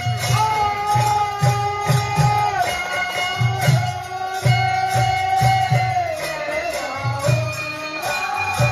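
Chaita folk music played live: long held, gently gliding melody notes over a steady drum beat of about two to three strokes a second.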